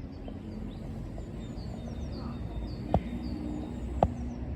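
A small bird chirping, a quick run of short high notes each sliding downward, over a steady low background rumble. Two sharp clicks stand out, about three and four seconds in.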